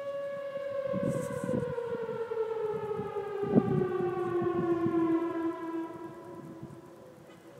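A long, siren-like, horn-like tone with many overtones, slowly sliding down in pitch and fading out toward the end. This is the unexplained 'strange sound' heard out of nowhere. Irregular low rumbles run beneath it.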